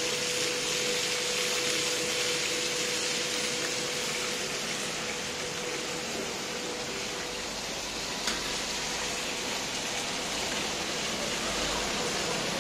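Pan-fried buns sizzling steadily in hot oil on a large round frying pan, with one sharp click about eight seconds in.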